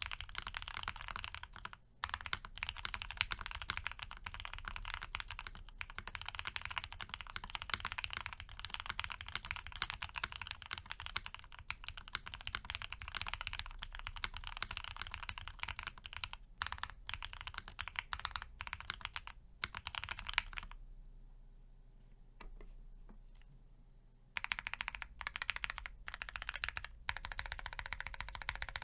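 Steady fast typing on a Piggy 60 mechanical keyboard with lubed and filmed Gateron FC switches on a polycarbonate plate and CRP APL keycaps, a dense run of key clacks. About two-thirds of the way through the typing stops for a few seconds, leaving only a few faint clicks, then starts again.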